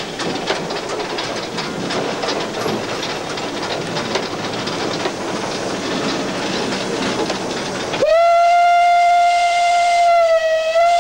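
Rattling, clattering running noise of the 2-8-0 steam locomotive 434.1100, heard from its cab while under way. About eight seconds in, its steam whistle starts and holds one loud steady note, wavering briefly once.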